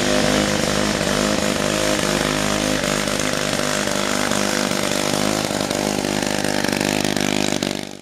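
Small engine of an Argyle folding scooter running steadily under way as it is ridden, until it cuts off abruptly near the end.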